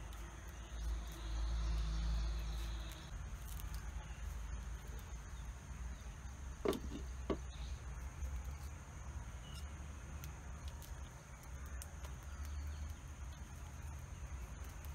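Two sharp knocks about halfway through, a clay lid being set down on an earthenware cooking pot, over faint insect chirring with a low rumble in the first few seconds.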